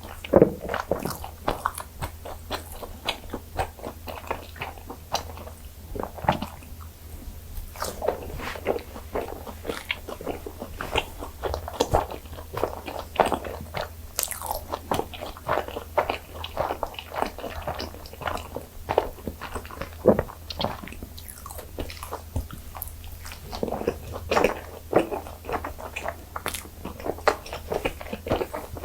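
Close-miked biting and chewing of butter-fried gijeongddeok (Korean fermented rice cakes), as many short, quick mouth noises throughout.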